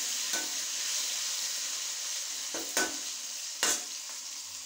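Masala-coated elephant foot yam pieces deep-frying in hot oil, a steady sizzle, with a few light knocks of a utensil against the pan.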